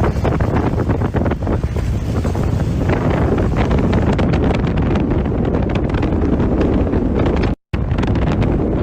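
Strong storm wind buffeting the microphone in a loud, gusty rumble, broken by a brief moment of silence near the end.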